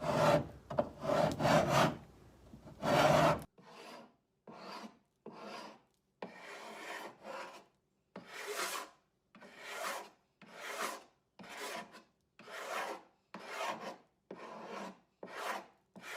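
Carbide paint scraper drawn across painted wood in repeated strokes, about one a second, rasping off layers of old paint. The first few strokes are the loudest.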